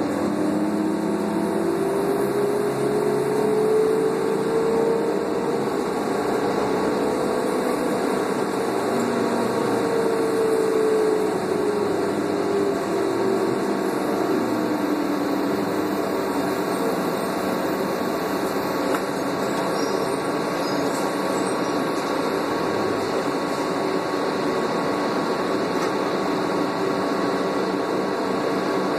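The Doosan CNG engine and drivetrain of a New Flyer C40LF transit bus, heard from inside the cabin. A whine rises in pitch as the bus accelerates, holds, then falls away. After that the engine and road noise run as a steady drone.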